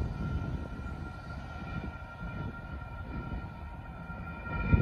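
Railroad grade-crossing warning bell ringing steadily over a low rumble, with a brief thump near the end.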